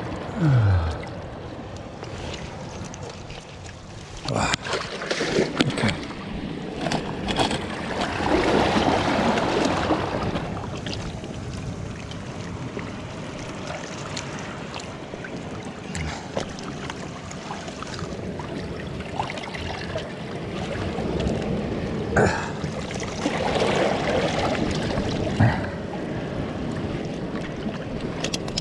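Sea water sloshing and splashing with wind noise, swelling louder a couple of times, with a few light knocks.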